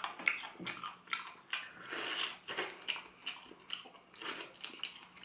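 Close-miked chewing of crispy fried chicken in a potato-starch coating: a run of irregular crunches, several a second.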